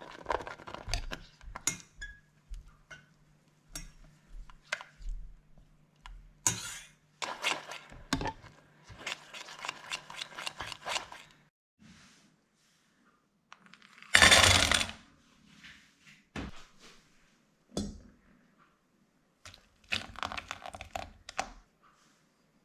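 Kitchen prep sounds: a run of light clinks, taps and rustles from utensils and bowls, with one louder, brief rustling burst about two-thirds of the way through.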